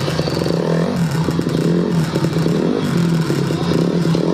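Honda CRF150R dirt bike's four-stroke single-cylinder engine running and revving up and down as it is ridden.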